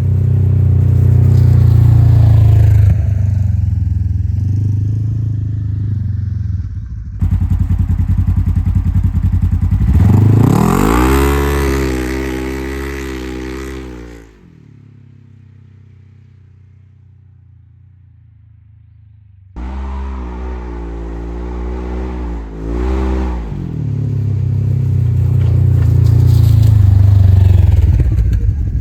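2022 Polaris RZR Trail S 1000's twin-cylinder engine running through an aftermarket Assassins slip-on muffler, revved up and back down twice, in several short clips that cut in and out abruptly. There is a stretch of a few seconds near the middle where only a quieter low hum remains.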